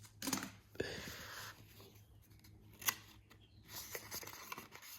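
Faint rustling and scraping of packaging being handled and taken out of a box, with a single sharp click about three seconds in.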